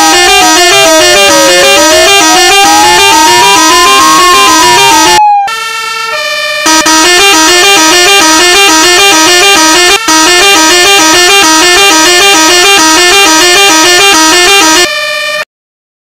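Electronic police siren sound from a siren simulator app. A wail slides slowly down and back up in pitch for the first five seconds over a fast pulsing tone, then a rapid repeating electronic pattern plays until it cuts off shortly before the end.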